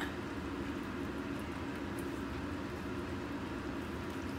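Steady low background hum of a small room, even throughout, with one faint tick about two seconds in.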